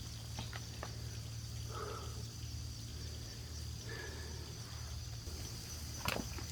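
Quiet outdoor ambience: a steady high hum over a low rumble, with a few faint short chirps and small clicks, and a sharper click about six seconds in.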